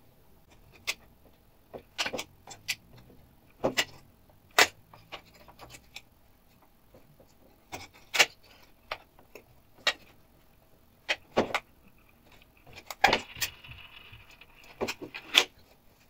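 Irregular sharp clicks and taps of small metal and plastic parts as a washing machine door's latch hook, spring and pin are worked into the plastic door handle with forceps, with a brief scrape about thirteen seconds in.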